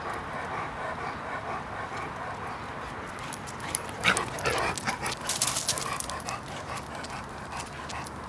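Irish wolfhound puppy close to the microphone, giving a short whimper about four seconds in, followed by a couple of seconds of quick clicks and rustling.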